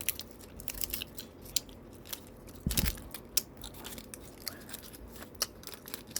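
Scissors snipping through Malangcow candy wrapper packaging in short, irregular cuts, with a louder knock a little under three seconds in.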